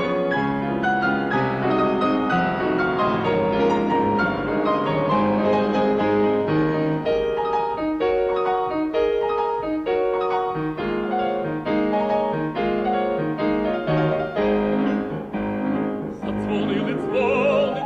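Piano playing an instrumental interlude between verses of a Ukrainian folk song, a run of struck, sustained chords and melody notes. A tenor voice with vibrato comes back in near the end.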